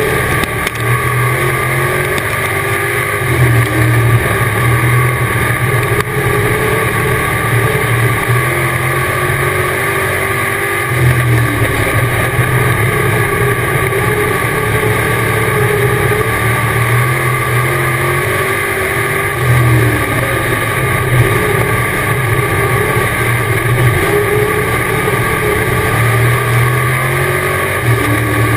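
Dirt-track race car's engine at racing speed, heard loud from inside the cockpit. The throttle opens and eases in a regular cycle, the engine rising about every eight seconds as the car goes round the oval.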